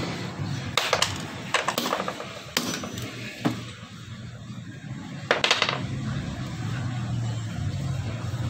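Sharp metal clinks and clicks of hand tools striking and prying at a car air-conditioning compressor's clutch and pulley, about half a dozen with a short ring after each, and a louder clatter about five seconds in. A low steady hum runs underneath.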